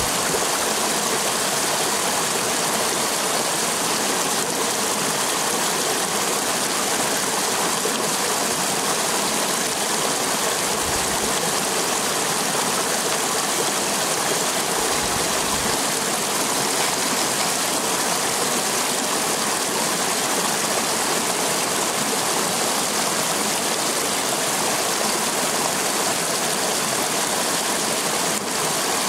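Shallow rocky stream running, a steady rush of flowing water.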